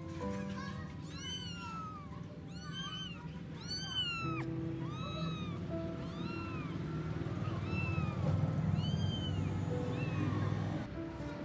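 A young kitten mewing over and over, short high-pitched arching mews about once a second, while it is held and lifted away from its mother. Background music plays underneath.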